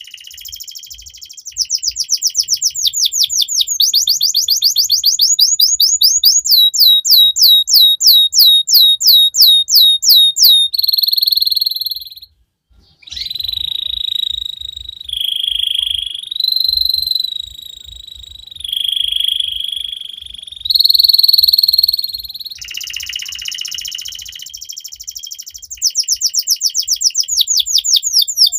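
Domestic canary in full song. It begins with fast trills of repeated sweeping notes that slow to about four a second, breaks off briefly, then holds whistled tones that step up and down in pitch, and ends in fast trills again.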